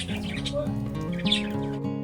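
Background music with a steady melody, over which pet budgerigars chirp briefly, most clearly once just past halfway.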